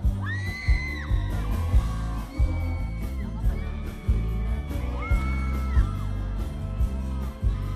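Live amplified pop music played loud, with a strong drum beat and a male singer singing into a handheld microphone, and high-pitched yells and cheers from the crowd.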